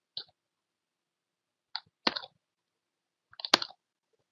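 A handful of sharp computer keyboard and mouse clicks, spaced a second or more apart, the loudest about three and a half seconds in, as lines of code are copied and pasted in an editor.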